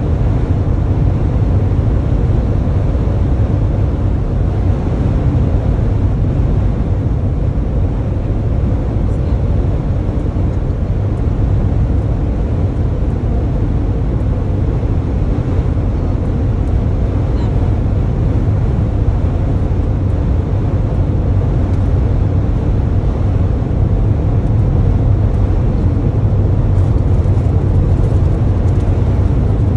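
Steady drone of engine and tyre noise heard inside a Toyota van's cabin while it drives along a highway, mostly low rumble, at an even level throughout.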